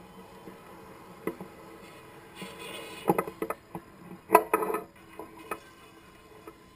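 Scattered sharp clicks and clattering knocks of hard objects being handled. There is one click early, then two clusters about three and four and a half seconds in, the second the loudest.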